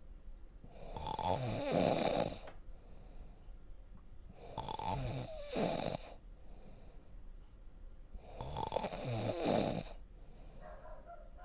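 A person snoring in a slow, even rhythm: three loud snores, one about every four seconds, with quiet breathing between them.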